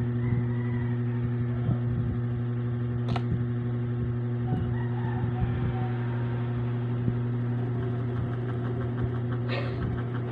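Steady low machine hum, with a sharp click about three seconds in and another near the end.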